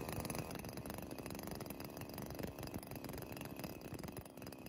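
Small two-stroke petrol brushcutter engine idling faintly, an even running sound, while the carburettor's idle-speed screw is adjusted.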